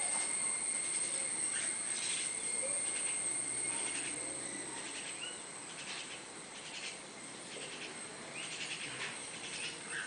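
Steady high-pitched drone of insects such as crickets, with scattered short bird chirps and a few faint distant calls.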